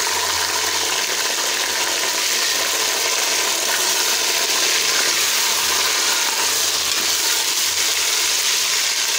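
Raw chicken pieces sizzling loudly in hot ghee with fried onions in a metal pot as they are stirred with a spoon: a steady frying hiss.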